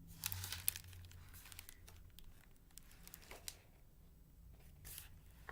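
A hardcover picture book being handled: faint rustling and crinkling of its cover and pages, with a few short clicks and taps as it is turned and moved, over a faint steady low room hum.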